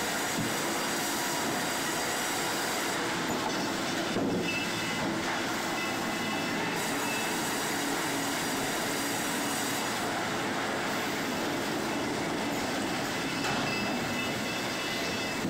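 Sawmill machinery running: a steady, unbroken mechanical din of conveyors and processing machines, with a few faint high tones over it.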